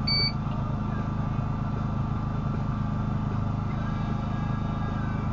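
Fujikura 50S fusion splicer giving one short electronic beep right at the start, over a steady machine hum with several constant tones while it aligns and fuses the fibers.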